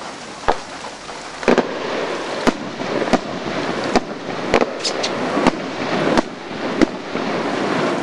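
Fireworks going off: about ten sharp bangs at irregular intervals, some a second apart and some closer together.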